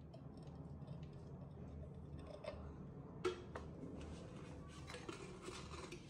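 Small handling sounds of making up baby formula: light clicks of a plastic measuring scoop against the bottle and tin. A sharper click comes about three seconds in, followed by a couple of seconds of scraping rustle as more powder is scooped.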